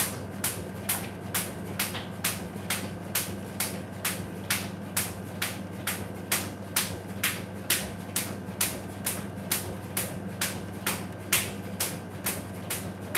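Jump rope slapping the tile floor on each turn as sneakers land, a steady rhythm of sharp strikes about two to three a second.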